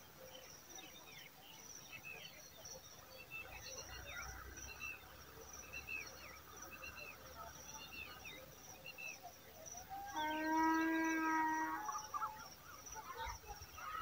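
Outdoor birdsong: many short chirps from birds, over a steady high insect whine. About ten seconds in, a louder drawn-out call lasts about two seconds.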